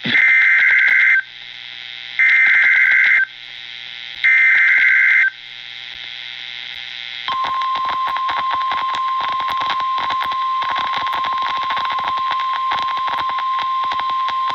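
NOAA Weather Radio Emergency Alert System sequence over radio hiss and static crackle. Three roughly one-second bursts of SAME header data tones, a harsh two-tone warble, come about two seconds apart. About seven seconds in, the steady 1050 Hz weather-radio warning alarm tone starts and holds, signalling a new warning.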